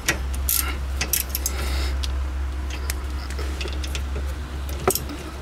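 Scattered light metallic clicks and clinks of a brake caliper bolt being threaded in by hand and tools being handled, over a steady low hum.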